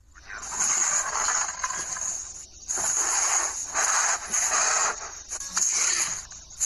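Creature sound effect for an animated Parasaurolophus: several long, unpitched hisses separated by short gaps.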